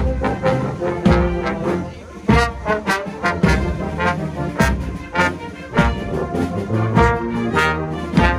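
Marching brass band playing a march in the street, with tubas, euphoniums, trombones and cornets over a regular beat about every 0.6 seconds.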